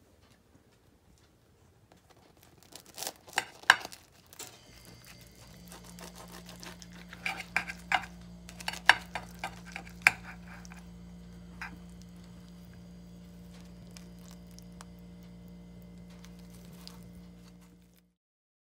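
Sharp clicks and knocks of dishes and utensils being handled on a countertop, in two clusters a few seconds apart. A steady low electrical hum starts about four and a half seconds in and cuts off suddenly near the end.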